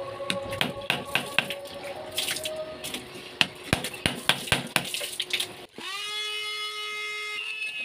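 A hand blade chopping and shaving a wooden block for a handle: about a dozen sharp, irregular strikes. Near the end a handheld electric rotary tool starts up and runs at speed with a steady high whine.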